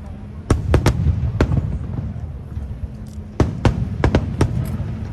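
Aerial fireworks shells bursting: a cluster of sharp bangs from about half a second in and another from about three and a half seconds in, over a continuous low rumble.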